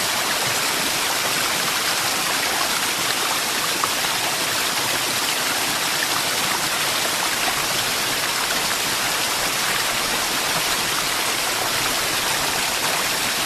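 Waterfall: water falling and rushing in a steady, dense hiss.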